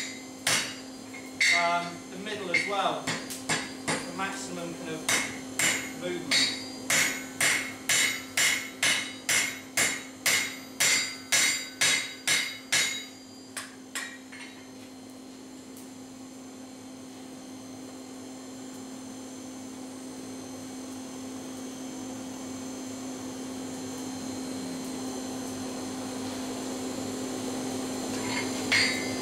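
Blacksmith's hand hammer striking hot steel on an anvil, about two ringing blows a second, stopping about halfway through. A steady rushing noise then slowly grows louder, over a constant low hum.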